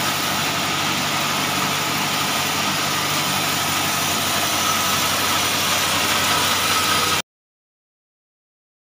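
Band sawmill running steadily while a timber beam is fed through it, a continuous low hum under a wide noisy whir. About seven seconds in, the sound cuts off suddenly to dead silence.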